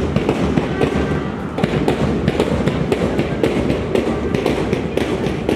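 School band's bass and snare drums beating a march, a quick run of sharp drum strokes several a second.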